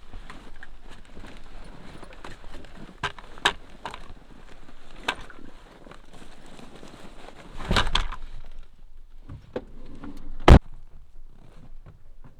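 Scattered knocks and clicks with rustling: a burst of rustle about eight seconds in and one sharp, loud click about ten and a half seconds in.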